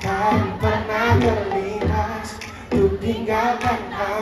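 Live pop song performance: a sung melody over a band with a drum beat.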